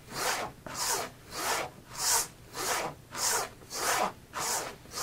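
Dovo Best Quality 6/8 straight razor being stropped with light pressure on the chromium-oxide-treated fabric side of a strop: an even rhythm of hissing swipes, about nine passes, each roughly a third of a second long. The abrasive compound is refreshing an edge that has begun to pull.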